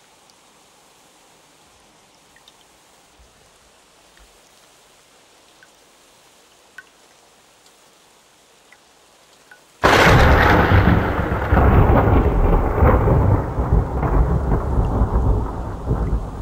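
Soft rain with scattered drips. About ten seconds in, a sudden loud thunderclap breaks and keeps rumbling, slowly fading.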